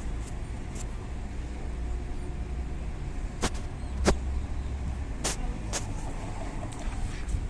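Low steady rumble of an Alstom Citadis 405 tram at a street stop, mixed with road traffic, with four sharp clicks around the middle, the second the loudest.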